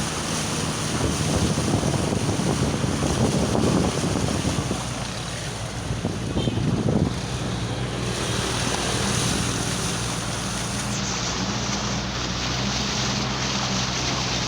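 Wind buffeting the microphone over rushing floodwater, with a steady low hum coming in about eight seconds in.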